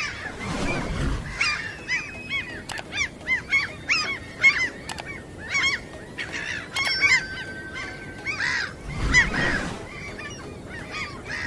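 A flock of gulls calling: many short, harsh, overlapping cries in quick succession. A low rushing noise swells twice, near the start and about nine seconds in.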